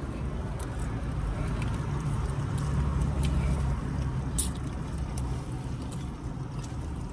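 Steady low hum with a few short, faint clicks and taps of eating from a takeout meal.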